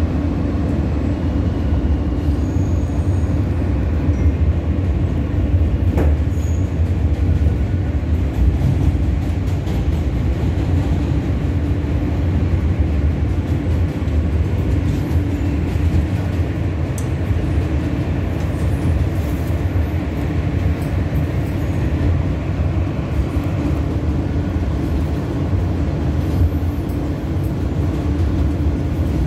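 An R160A New York City subway car running at speed, heard from inside the car: a steady rumble of wheels on rail with a constant low hum, and one sharp click about six seconds in.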